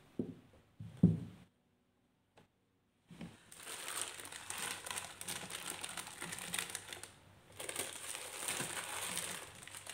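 Two knocks as plastic spice jars are set down on a cloth-covered table, the second one louder. After a short silence, plastic seasoning sachets crinkle steadily as they are handled and dropped into a plastic storage box, with a brief pause partway through.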